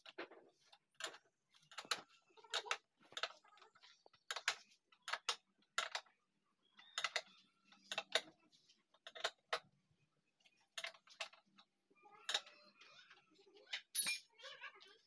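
Scattered sharp clicks and light knocks of metal parts being handled while the machine's pillow-block bearings, shaft and bolts are fitted to its wooden frame, about one or two a second, with a louder knock near the end.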